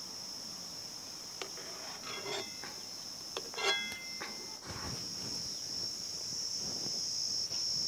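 Steady high-pitched drone of insects shrilling, with a few light clinks of a metal ladle against an aluminium pot and steel bowl as boiled mangoes are lifted out, one ringing briefly around the middle.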